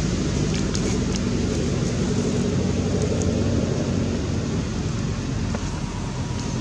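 Steady low rumble of wind on the microphone, with faint scattered ticks.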